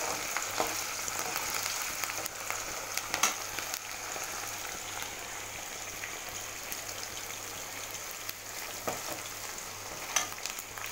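Diced potatoes, green chillies and curry leaves sizzling steadily in hot oil in a kadhai. A few sharp clicks of the steel slotted spoon against the pan come about three seconds in and again near the end.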